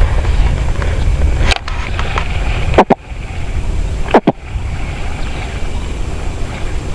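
Wind rumbling on an action camera's microphone, eased after the first second and a half, with two short swishing thumps about three and four seconds in.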